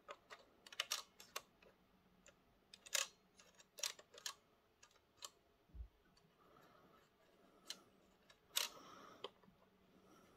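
Faint, irregular clicks and taps from fingers handling a plastic Piko model railway coach, with a soft low thump about six seconds in and a brief rustle a little before the end.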